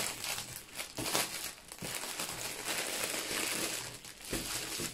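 Clear plastic packaging crinkling in irregular rustles as a rolled bundle of small bagged diamond-painting drills is pulled out of its bag and handled.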